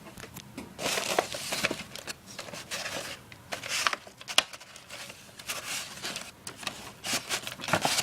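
Packaging crinkling and rustling with scattered light knocks and clicks as a new PC power supply unit is handled and unwrapped.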